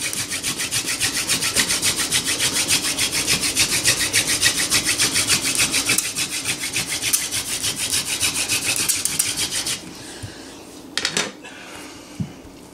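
Horseweed hand-drill spindle spun back and forth between the palms on a wooden hearthboard: fast, even wood-on-wood rubbing strokes, a rundown to build up more charred dust, since there isn't enough yet. The rubbing stops about ten seconds in, and a couple of short knocks follow.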